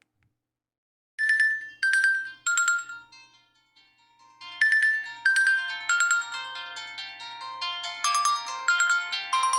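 A Nokia 8000 4G default ringtone playing. Three descending bell-like notes come about a second in and ring out. The same three notes return about four and a half seconds in and open a fuller, steady melody with lower notes under it.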